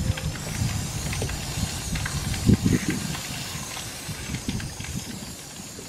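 Garden hose spray nozzle hissing as its jet of water spatters onto a sailboat's cap rail, washing off sanding dust. Irregular low bumps run underneath, loudest about two and a half seconds in.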